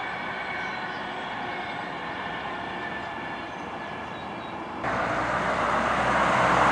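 A passing vehicle's whine of several steady tones fades slowly away. About two-thirds of the way through, it cuts suddenly to a louder, even rushing noise that keeps building.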